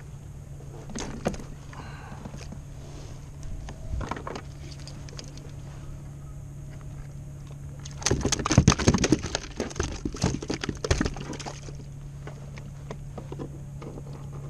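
Rattling and knocking of handling and gear noise while a channel catfish is landed at the kayak: a dense burst about eight seconds in that lasts some three seconds, with a few single clicks before it. A steady low hum runs underneath.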